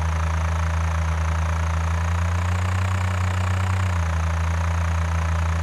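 Tractor engine running steadily, a low hum whose pitch rises slightly and drops back about four seconds in.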